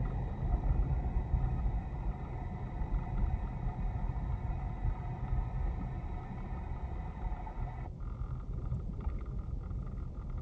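A car's steady low rumble of engine and road noise while driving, heard from inside the cabin.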